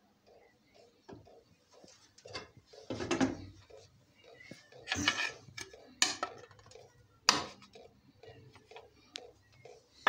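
A spoon tapping and scraping as bulgur-rice pilaf is packed into a glass bowl, then a few sharp clinks and clatters of dishes as the bowl is turned out onto a plate.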